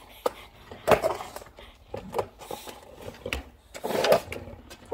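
English Bulldog gnawing on the edge of a wooden skateboard deck: teeth scraping and knocking on the wood in irregular clicks, the loudest about a second in.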